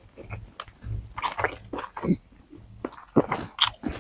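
Close-miked chewing and biting on a crispy pata meal (deep-fried pork leg with rice and lettuce), with irregular crunches in short clusters, the loudest near the end.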